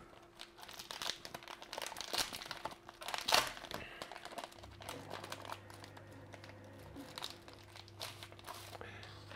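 White packaging pouch crinkling and crackling as hands peel open its sealed end and pull the opening apart, with irregular crackles, the loudest about three seconds in.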